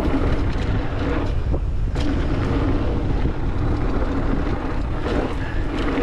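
Wind buffeting the microphone while a mountain bike rolls down a dirt jump line, its tyres running on packed dirt, with two sharp knocks about one and a half and two seconds in.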